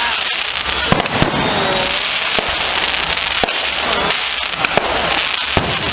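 Aerial fireworks going off: sharp bangs every second or so over a continuous crackling hiss of bursting shells.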